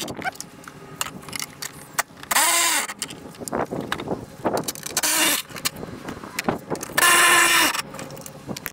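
A 3/8-inch drive impact gun runs in three short bursts, spinning bolts out: about two seconds in, about five seconds in, and a longer steady burst near the end. Light metal clicks and handling sounds fall between the bursts.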